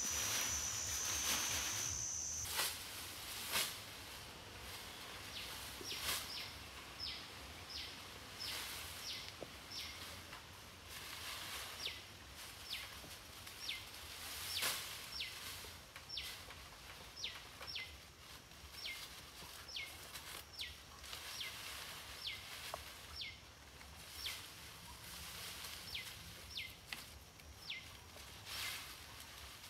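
Forest background with a steady high insect whine that cuts off about two seconds in. After that a bird gives short, quick falling chirps, roughly one a second, over scattered rustles and snaps of the dry leaf thatch being handled.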